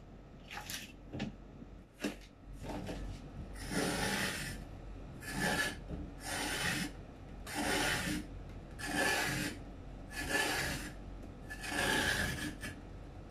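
Bottle gourd (upo) skin being peeled with a hand peeler: a few light scrapes, then about seven long rasping strokes down the gourd, roughly one every second and a half.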